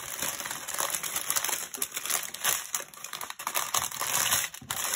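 Small plastic zip bags of diamond-painting drills crinkling and rustling as they are gathered up and handled, with many small clicks and taps.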